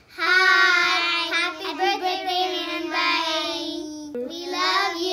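Young girls singing in high, held notes, with a short break about four seconds in.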